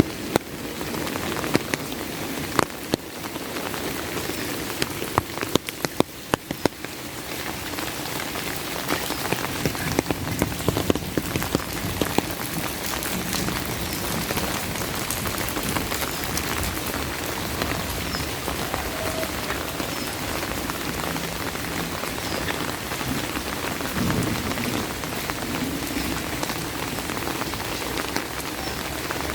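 Steady rain falling, with sharp individual drops ticking close by, thickest and loudest during the first twelve seconds or so.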